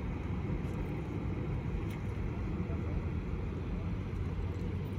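Steady low rumble of an idling police patrol car engine.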